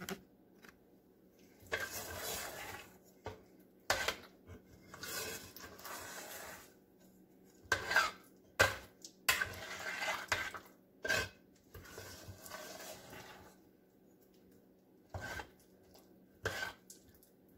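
Metal spoon stirring thick candy with pecans in a stainless steel pot: stretches of scraping against the pot, broken by sharp clinks and knocks of the spoon on the metal.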